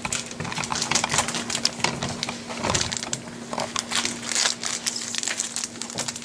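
Trading cards and their packaging handled on a wooden table: irregular light clicks, taps and rustles, over a faint steady hum.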